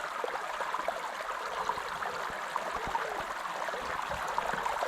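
Creek water running over rocks: a steady rush of flowing water.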